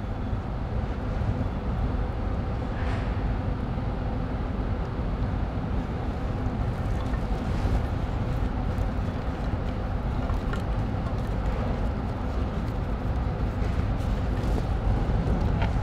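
Steady low machinery hum of a factory floor, with a few faint clicks as the motor cable and connectors are handled.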